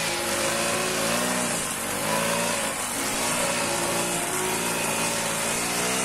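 Petrol brush cutter engine running at high speed while cutting grass, its pitch rising and dipping about once a second as the blade bites into the grass.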